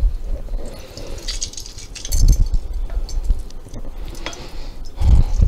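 Lemon juicing with a hand-held metal lemon squeezer over a glass measuring cup: scattered light clinks of metal and glass, with dull knocks about two seconds in and again near the end.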